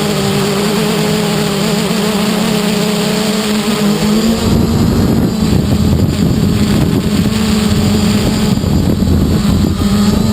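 Quadcopter's four electric motors and propellers whining steadily in flight, heard from the onboard camera. About four seconds in, wind buffeting the microphone adds a heavy low rumble over the motor hum.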